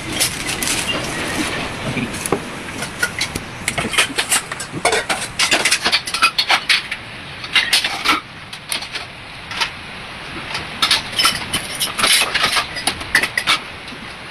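Irregular clicks and knocks, some in quick clusters, over a steady background noise.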